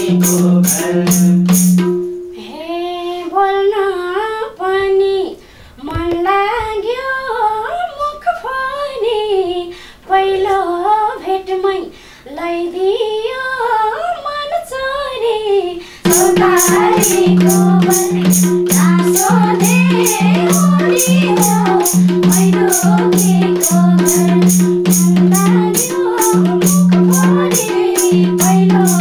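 Nepali lok dohori singing: a woman sings unaccompanied for about fourteen seconds, then the madal drum and accompaniment come back in with a steady rhythm beneath her voice.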